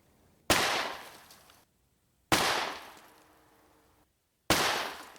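Three handgun shots about two seconds apart, each a sharp crack followed by a fading echo that is cut off abruptly.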